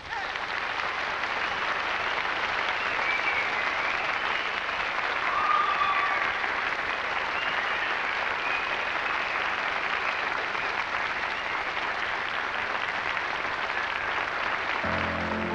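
Studio audience applauding steadily. Near the end a piano begins playing.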